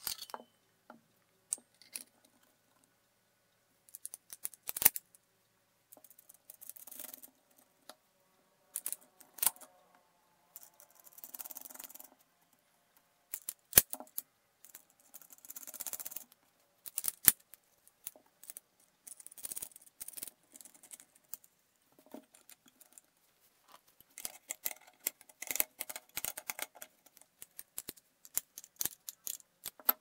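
Aluminium plate, steel brackets, nuts and bolts of an agitation mechanism being handled and fitted together by hand: scattered sharp metallic clicks and clinks, with short stretches of scraping and rubbing between them.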